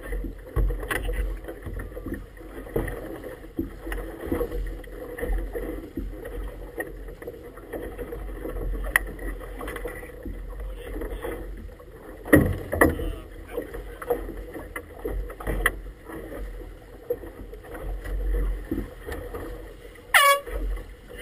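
Wind rumbling on the microphone and choppy water lapping and splashing against an inflatable boat's hull, with scattered knocks. Near the end a short high sound slides sharply down in pitch.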